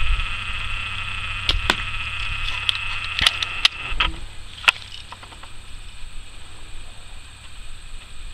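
Daisy Red Ryder spring-air BB gun being worked between shots: a few sharp clicks and snaps of the cocking lever and firing. A steady high buzzing drone runs underneath and stops about four seconds in.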